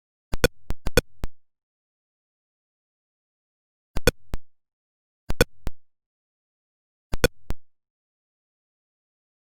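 Atari Pong sound effects: short, pitched electronic beeps, each group of two or three quick blips marking the DVD logo bouncing off a screen edge. A cluster of beeps comes near the start, then three more groups follow a second or more apart, with dead silence between.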